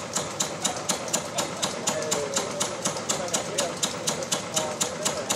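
A machine clicking in an even rhythm, about five sharp ticks a second, with the chatter of voices behind it.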